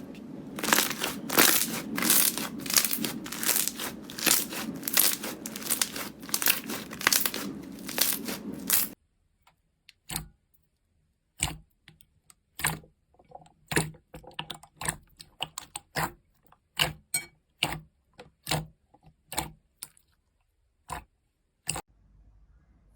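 Slime being squeezed and pulled close to the microphone, crackling densely with many sharp pops. About nine seconds in it cuts to a quieter stretch of single crisp pops and crackles spaced a second or so apart.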